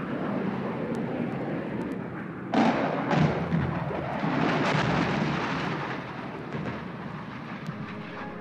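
Battle sound effects: a continuous rumble of war noise with a sudden loud blast about two and a half seconds in and heavy thuds just after, dying down toward the end.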